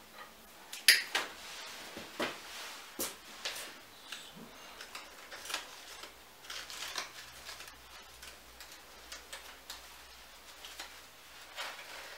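Handling noises from arranging flowers: irregular sharp clicks and light knocks, the loudest about a second in, with soft rustling as leafy stems and twigs are worked into the arrangement.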